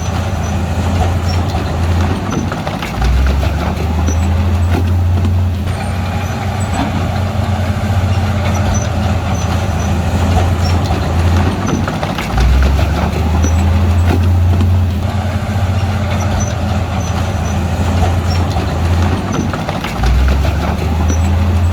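Heavy diesel engine of a bulldozer running under load, its engine note stepping up and getting louder three times, about three seconds in, near the middle, and near the end, as the machine is worked harder.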